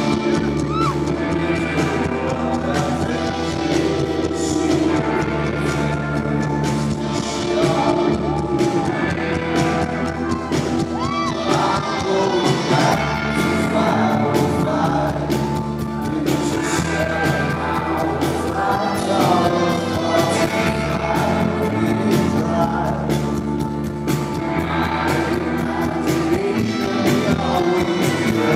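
Live rock band playing a song: a man sings lead into the microphone over electric guitars and drums.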